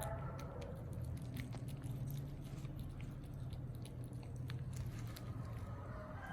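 Kittens chewing and lapping at food: irregular small clicks and smacks from their mouths, over a steady low hum.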